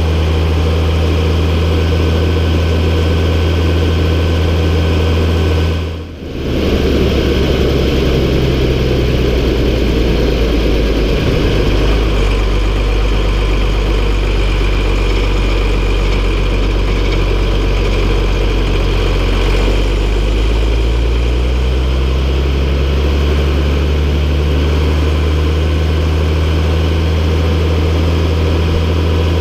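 MB Trac 1800 tractor's six-cylinder diesel engine running steadily. Its sound briefly drops out about six seconds in; afterwards the engine runs at a lower pitch and climbs back up again later.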